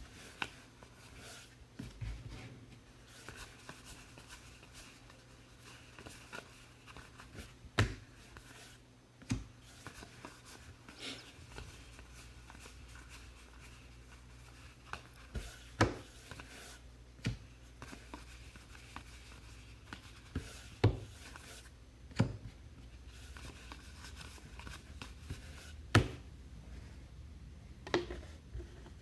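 Trading-card packs and cards being handled by hand: soft rustling and sliding, broken by scattered sharp taps and clicks at irregular intervals.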